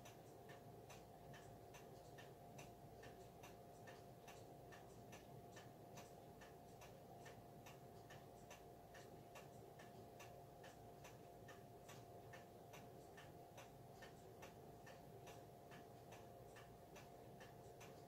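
An antique E. Ingraham eight-day mechanical wall clock ticking steadily and faintly, its pendulum escapement giving a regular tick-tock.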